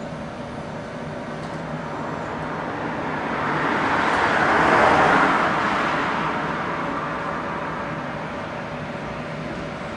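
A road vehicle passes by, growing louder to a peak about halfway through and then fading away, over a steady low hum.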